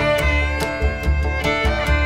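Background music: a fiddle tune over a steady beat of bass and light percussion.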